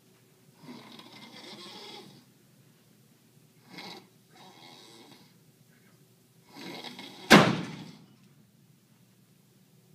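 A person snoring: a few separate rasping, bleat-like snores a couple of seconds apart. About seven seconds in comes a sudden, much louder sharp burst that fades within half a second.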